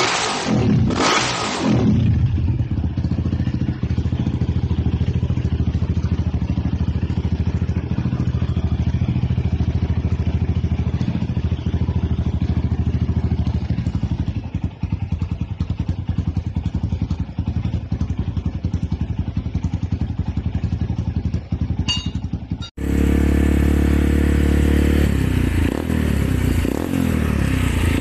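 Dirt bike engine through an aftermarket conical exhaust, revved in quick blips and then idling steadily. About 23 seconds in, it cuts to a second, Honda dirt bike running through its own aftermarket exhaust, louder and deeper.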